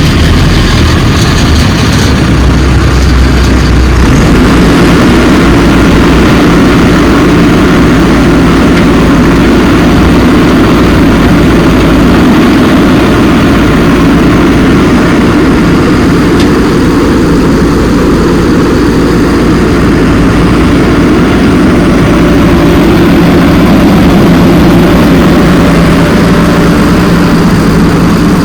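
Heavy diesel engine of earth-moving machinery running steadily, with a steady low hum that settles in about four seconds in.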